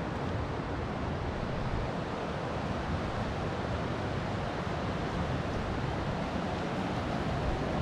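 Steady rushing roar of a river rapid, the white water of the Kymi river.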